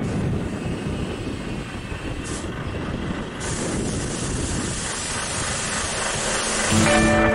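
Steady rumble with hiss from vehicles working as a car is loaded onto a car-transporter truck. Music comes in near the end.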